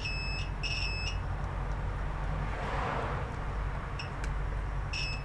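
Multimeter continuity beeper giving short high beeps as the probes touch pads on a circuit board: two in the first second, a brief blip about four seconds in and another near the end. Each beep signals a closed, low-resistance path between the probes, as when a pad is tied to ground.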